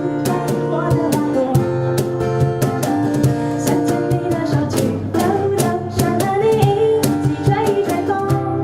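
An upbeat song played live, led by guitar over a steady beat.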